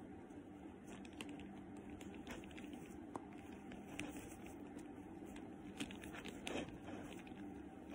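Faint rustling and small scattered clicks as a twilly scarf is wrapped and tied around a handbag's top handle, over a low steady hum.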